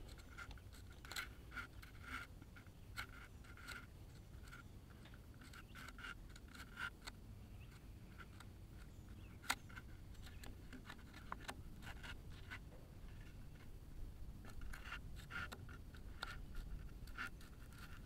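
Pencil scratching on the wood of a timber post in short, irregular strokes, scribing the contour of the stone beneath onto the post. There is one sharper click about halfway through.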